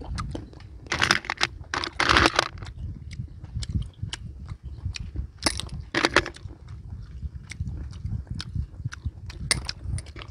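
Close-up chewing and wet mouth sounds of a man eating cooked small snails, with a few louder smacking bursts. Many light clicks come from snail shells knocking together on the metal tray.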